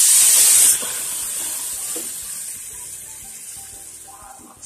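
Water poured into a pan of hot oil and fried onions, sizzling with a loud hiss that drops sharply under a second in, then a softer sizzle fading away steadily.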